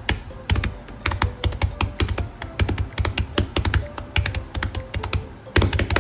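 Quick, irregular knife strokes knocking on a cutting board, several a second, each with a dull thump, as food is chopped.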